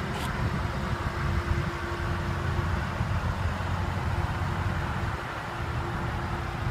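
Vehicle engine idling: a steady low rumble with a faint constant hum.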